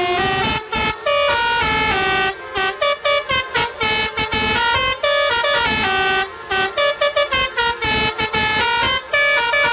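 Telolet multi-tone musical air horn playing a tune: a quick run of short horn notes stepping up and down in pitch, with brief breaks between phrases.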